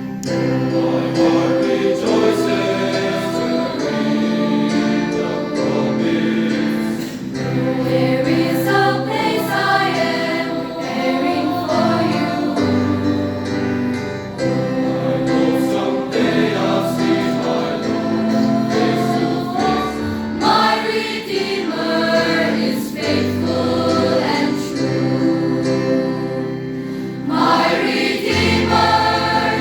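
A choir singing a religious song, with long held low accompaniment notes under the voices.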